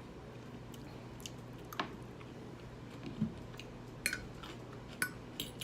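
A person eating a kale salad: quiet chewing with about five short, sharp clicks scattered through it, over a steady low hum.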